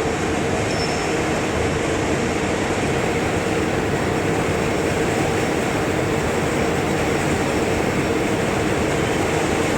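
Gear tooth grinding machine running steadily: an even, unbroken machine noise with a steady tone under it.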